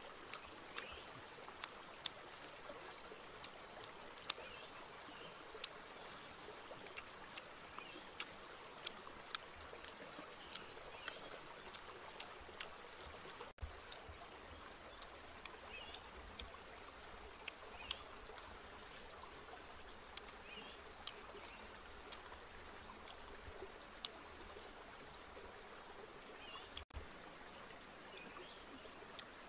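Steady rush of a stream with a faint high steady tone above it. Short sharp clicks come about once a second. The sound drops out for an instant twice.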